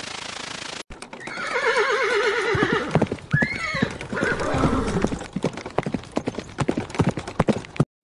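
A horse whinnying: a long neigh with a quavering pitch starting about a second in, then a shorter call, followed by a run of quick hoof clip-clops that lasts almost to the end. A steady hiss fills the first second.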